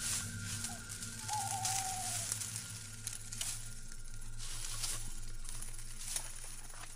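Crackling, rustling noise with scattered sharp clicks.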